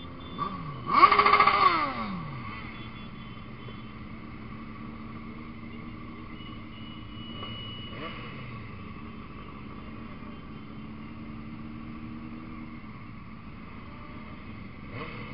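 Motorcycle engines in a riding group: a nearby motorcycle revs sharply about a second in, its pitch falling away over the next second, then a steady engine drone as the bikes cruise, picking up again near the end.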